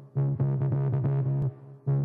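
Electronic background music: a steady throbbing bass note under a fast repeating synth pattern of about six notes a second, which drops out briefly near the start and again about three quarters of the way through.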